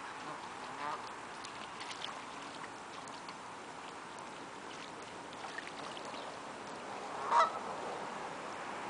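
Canada geese calling: a faint honk about a second in and one loud honk near the end, over a steady background hiss with scattered faint clicks.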